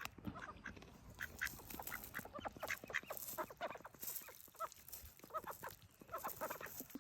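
Ducks quacking: many short quacks in quick succession, overlapping as from several birds.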